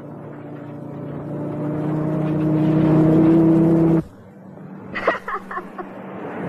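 Cartoon truck engine running and growing steadily louder as the truck draws near, cut off abruptly about four seconds in. A few short sharp sounds follow near the end.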